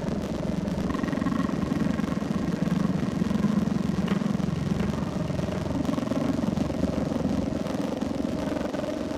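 Steady engine drone of a running vehicle, a dense low rumble with a faint whine above it and no changes in pace.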